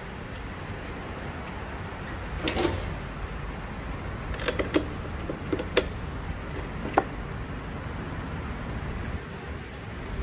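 About eight short, sharp knocks and clicks of tools and metal parts being handled during a repair, clustered in the middle, over a steady low hum.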